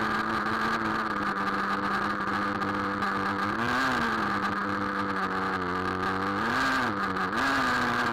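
Small two-stroke nitro engine of a Traxxas Rustler RC truck running steadily, heard from on board, with three short throttle blips that raise its pitch for a moment, about four seconds in and twice near the end.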